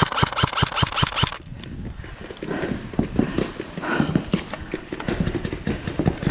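Airsoft gun firing full-auto, a rapid string of shots at about seven a second that stops about a second and a half in, followed by faint voices.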